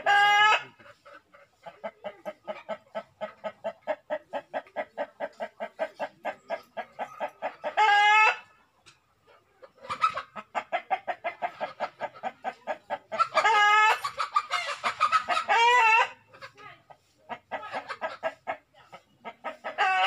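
Chickens clucking in a rapid, steady run of about five clucks a second, broken a few times by loud short calls and, about 13 seconds in, by a louder call that lasts about three seconds.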